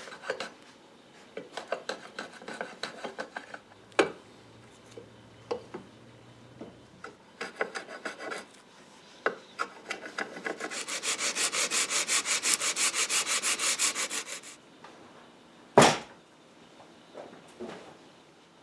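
Hand-rubbing an abrasive over a walnut patch on a wooden chair leg to fair it in. Scattered short strokes come first, then about four seconds of fast, even back-and-forth strokes. A single sharp knock near the end is the loudest sound.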